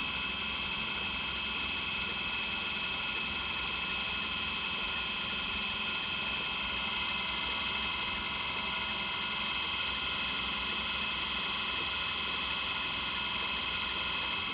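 Mini bench drill press motor running with a steady high whine as its bit drills through a pocket knife pin.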